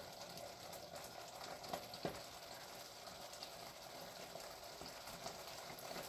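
Green bean sauce boiling faintly and steadily in a pot on the stove, reducing as its water boils off, with a couple of light clicks about two seconds in.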